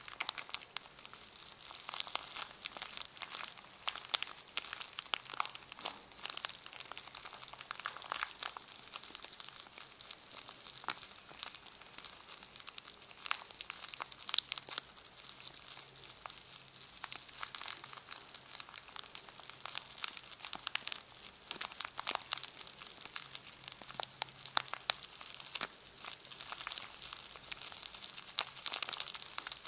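A brush in its packaging being handled and crinkled: a dense, irregular crackle of packaging with many sharp clicks, going on without a pause.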